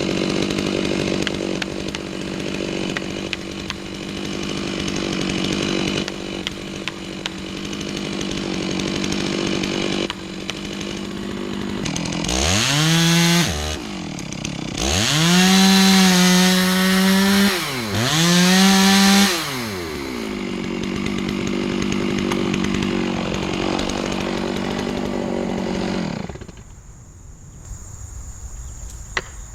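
Two-stroke chainsaw idling steadily, then revved up to high speed in three short bursts, each rising and falling back in pitch, before settling to idle again and being switched off about 26 seconds in.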